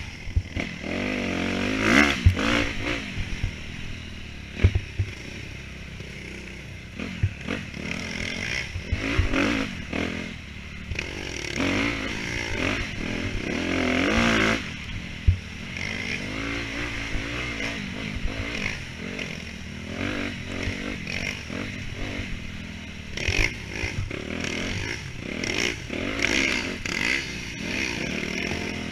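Dirt bike engine revving up and down as it is ridden hard through an enduro trail, with scattered knocks and clatter from rough ground.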